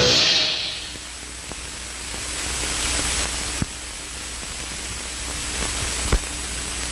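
Closing music fades out in the first second, leaving steady hiss from an old analog recording, with a faint high whine and two sharp clicks, about three and a half and six seconds in.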